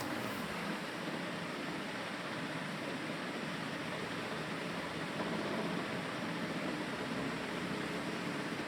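Steady background hiss with no drops or other distinct sounds standing out.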